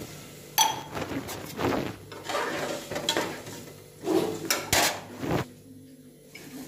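Kitchen utensils and pots being handled: irregular knocks and clatter, several sharp ones in the middle, then a brief lull near the end.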